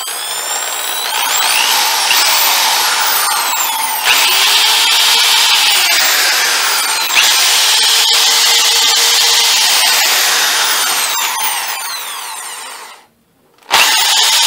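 Black & Decker TM650-B2 corded hammer drill running in reverse with no load, the motor's whine rising and falling in pitch as the trigger varies its speed. The drill now spins freely, cleaned of the dirt that had made its chuck lock. Near the end it stops for a moment and starts again.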